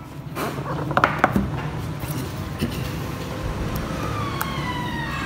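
Cardboard smartphone box being opened by hand: the lid slides off and the box pieces are handled on a table, with a short run of scrapes and taps about a second in. A falling, siren-like tone comes in near the end.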